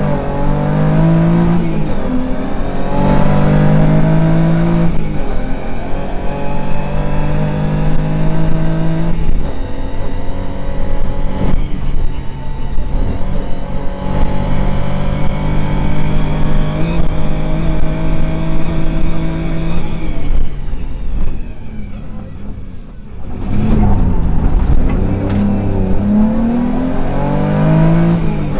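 Rally car engine heard from inside the cabin, revving hard through the gears: its pitch climbs again and again and drops back at each upshift. About two-thirds of the way in it falls to a quieter, lower note for a few seconds, then climbs again.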